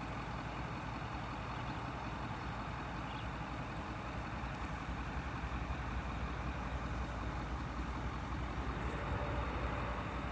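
Distant CN freight train approaching: a steady low rumble from its diesel locomotives that grows slightly louder toward the end.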